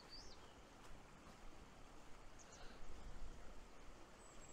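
Steady soft rush of a small moorland stream, with a few faint high bird chirps and a gust of wind buffeting the microphone about three seconds in.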